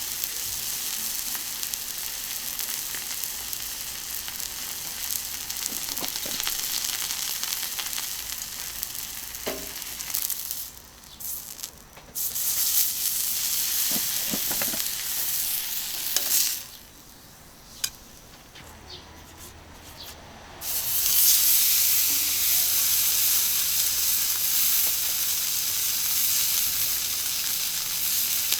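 Beef steak sizzling on a hot iron griddle, a steady frying hiss with a few light clicks. The sizzle drops away sharply twice, about ten seconds in and again about seventeen seconds in, then returns louder near the end.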